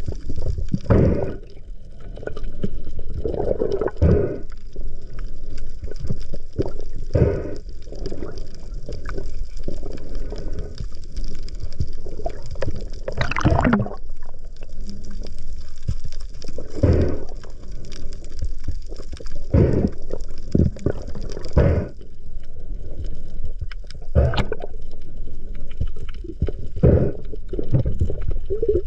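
Underwater noise picked up by a diver's camera: water swishing and gurgling against the housing, with irregular knocks and thumps throughout and one louder knock about halfway through.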